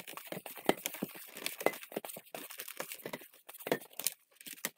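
Long latex twisting balloon squeaking and rubbing as it is twisted into a row of small bubbles: a quick, irregular run of squeaks and clicks that thins out near the end.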